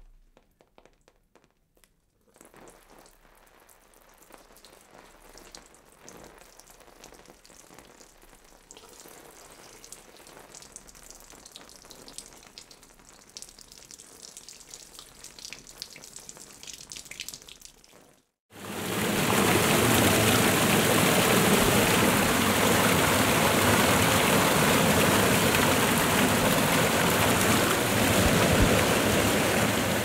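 A steady stream of water spraying onto a body, faint and slowly getting louder. About eighteen seconds in it stops and a much louder, steady waterfall rush begins.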